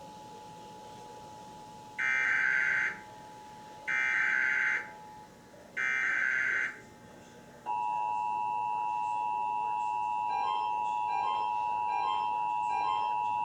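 Emergency Alert System activation on TV: three one-second bursts of SAME header data, a harsh digital screech about two seconds apart, then the steady EAS two-tone attention signal starting about eight seconds in. A fainter two-tone attention signal is already sounding at the start, and faint regular beeps sound over the loud tone near the end.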